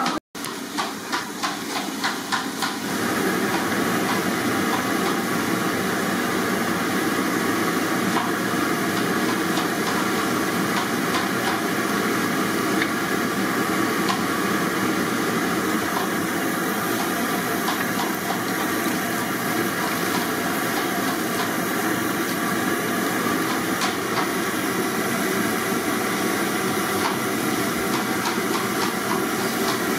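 Raw potato strips deep-frying in hot oil in an iron kadai: a loud, steady sizzle thick with crackling. It starts as scattered crackles and fills out into a continuous sizzle about three seconds in.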